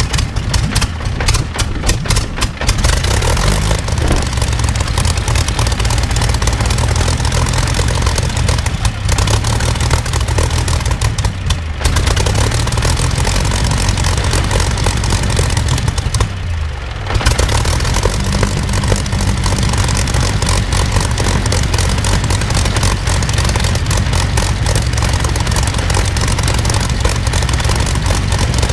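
Rolls-Royce Griffon 58 36.7-litre V12 aero engine running on a ground-test trailer and turning its propeller, on its first run in about two years. Its firing is choppy for the first couple of seconds, then settles into a steady run, with a brief dip in the engine note about sixteen seconds in before it picks up again.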